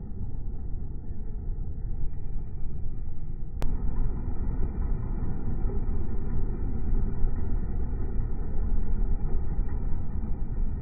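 Comfort Zone heater's fan running with a steady low rushing noise. A single sharp click about three and a half seconds in.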